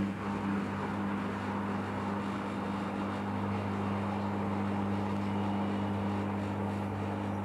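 Washing machine humming steadily as its wash cycle begins, a mains-type hum over a faint rushing noise that cuts off abruptly near the end.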